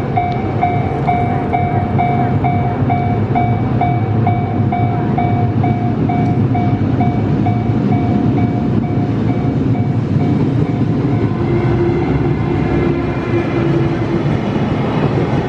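A Japanese level-crossing warning bell rings in a steady rhythm, about three strikes a second, over the continuous rumble of a freight train hauled by a JR Freight EF210 electric locomotive. The bell stops about ten seconds in; the train keeps rumbling past, and a low steady tone sounds for a few seconds near the end.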